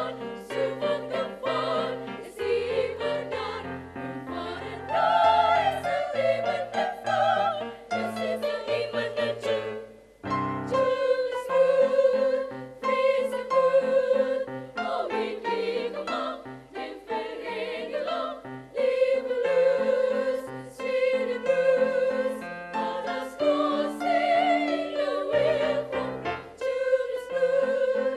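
A women's choir singing together into microphones, several voices in parts. The singing breaks off briefly about ten seconds in, then resumes.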